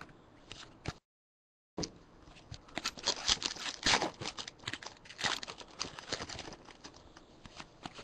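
A foil 2011-12 Panini NBA Hoops basketball card pack being torn open and crinkled by hand, a dense run of sharp crackles and rips, with cards being handled. The sound drops out completely for under a second about a second in.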